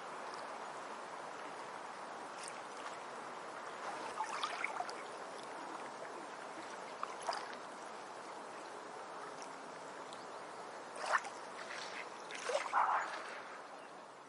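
Steady water noise with a few short splashy, rustling bursts: one about four seconds in, a brief one around seven seconds, and two louder ones near the end.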